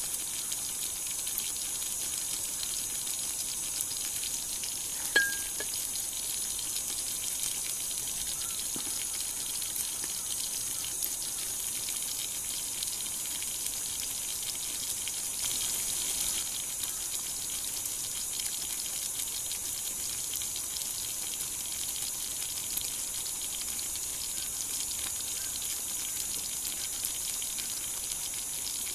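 Steady, even hiss throughout, with one sharp click about five seconds in.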